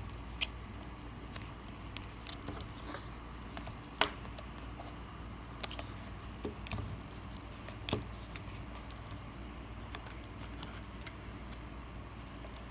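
Scattered clicks and taps of multimeter test leads and probes being handled and pushed into a mains socket, the sharpest about four seconds in, over a low steady hum.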